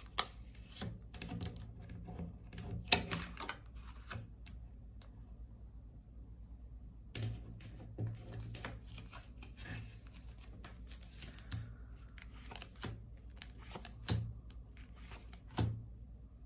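Tarot cards being handled, shuffled and laid down on a table, making irregular light clicks, taps and slaps.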